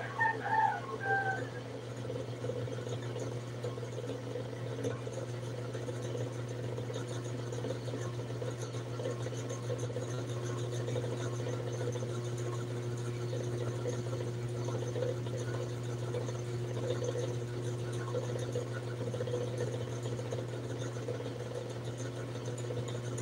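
A steady low mechanical hum, with a few brief high-pitched chirping sounds about half a second in.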